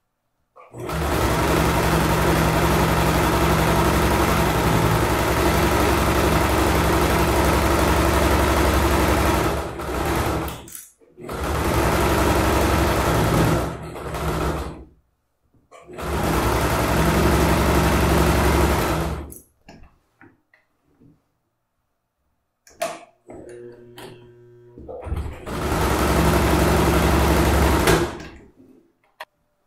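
Electric domestic sewing machine stitching a fabric bag's side seam in stops and starts: one long run of about nine seconds, then three shorter runs with pauses between. A few clicks and knocks come from handling the machine and fabric between the last two runs.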